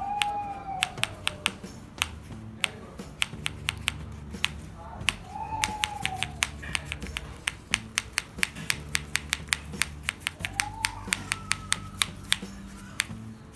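Homemade clapper toy of cardboard discs with plastic bottle caps clacking together as it is snapped shut again and again: dozens of sharp clicks, several a second in uneven runs.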